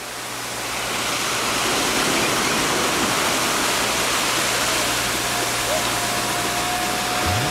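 Steady rushing of sea surf washing onto a sandy beach, fading in over the first second or so. A faint, thin steady tone joins about five seconds in.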